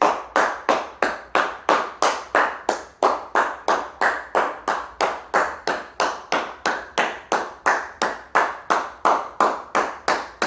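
Hands clapping in a steady, even rhythm, about three claps a second.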